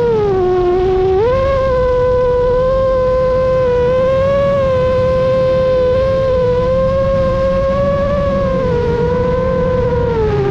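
FPV racing quadcopter's motors whining steadily. The pitch sags low for about the first second, rises back and holds with small wobbles as the throttle shifts, then dips again near the end.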